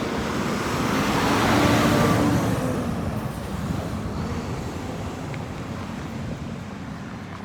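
Highway traffic: a vehicle passes close by, its tyre and engine noise growing to a peak about two seconds in and then fading, leaving steady road noise.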